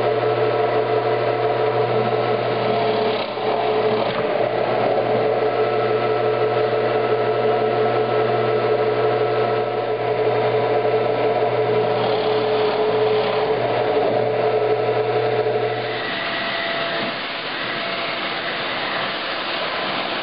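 Small benchtop drill press motor running steadily while boring dowel holes in half-inch plywood strips. The sound drops slightly and changes character about sixteen seconds in.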